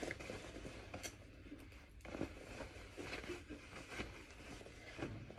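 Faint rustling of denim fabric being folded and handled, with scattered small clicks.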